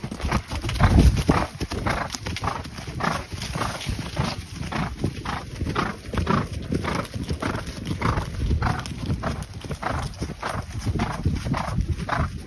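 Horses' hooves striking a leaf-covered woodland trail in a steady clip-clop of about two to three hoof falls a second. About a second in there is a loud low rumble of handling or wind noise on the microphone.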